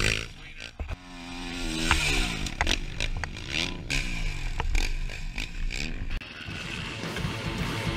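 Dirt bike engines revving, the pitch rising and falling several times as the throttle is worked. Music comes in about six seconds in.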